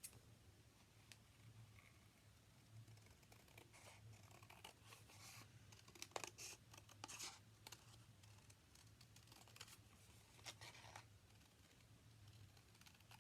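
Faint scissors cutting paper, in several short spells of snipping and scratching.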